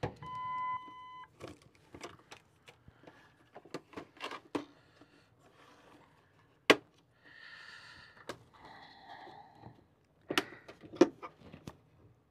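Plastic clips on a Ford F-250 instrument cluster housing clicking and snapping as the case is worked apart by hand, with sharp knocks and scuffs of the plastic being handled. A short steady electronic beep of about a second comes at the very start.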